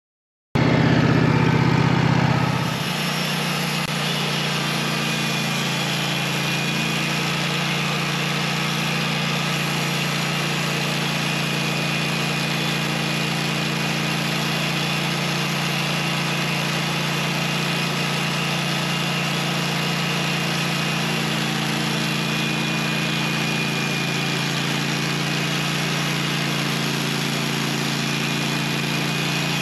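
Portable sawmill's engine running steadily. It cuts in abruptly about half a second in, is louder for the first two seconds, then settles to an even, unchanging run.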